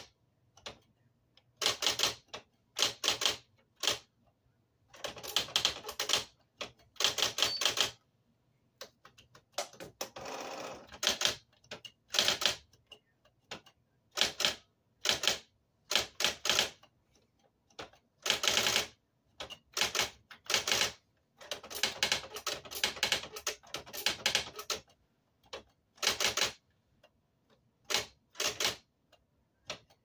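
Electric typewriter being typed on: rapid runs of key strikes in bursts of a second or two, with short pauses between. About ten seconds in there is a smoother, longer run of mechanical sound lasting about a second.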